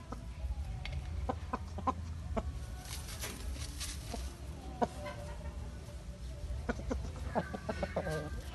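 Aseel chickens clucking: short, scattered clucks, with a longer drawn-out call near the end.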